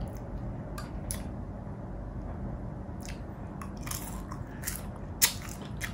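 A person chewing and crunching crisp fried dried fish (tuyo), with a series of short sharp crunches scattered through, the loudest a little past five seconds in.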